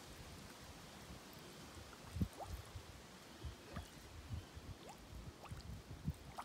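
Mud volcano vent bubbling: gas bubbles bursting through soft grey mud in faint, irregular plops and gurgles, some with a quick rising squeak, the strongest a little over two seconds in.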